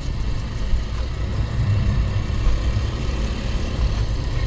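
Steady low rumble from a motorcycle riding at road speed on wet asphalt: engine noise mixed with wind on the bike-mounted camera's microphone.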